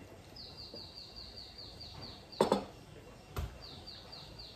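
A fast series of short, high, falling chirps, about five a second, in two runs with a pause between them. About halfway there is a sharp knock, and a softer thud follows a second later, as a drinking glass is set down on the table.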